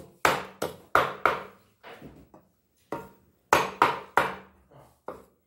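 A long kitchen knife chopping a peacock bass into steaks on a wooden board: a series of sharp chops, about three a second, in two runs with a short pause near the middle.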